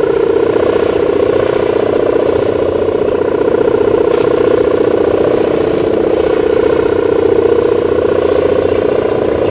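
Sendaren hummer on a large flying kite (about 3 m across), its tuned plastic mika reed vibrating in the wind: a loud, steady, buzzing drone with a fast flutter in it, the 'gerr' sound.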